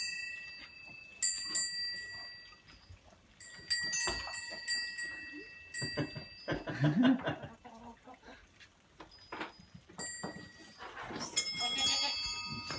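Metal bells struck several times, each strike ringing on for a few seconds in clear high tones, with a goat bleating once about seven seconds in.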